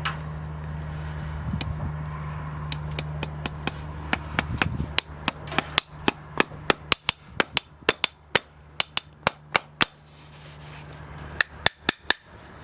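Farrier's hammer striking in a quick, even series of sharp taps, about four a second, for several seconds, then a short burst of a few more near the end. A steady low hum sits under the first part and fades out about five seconds in.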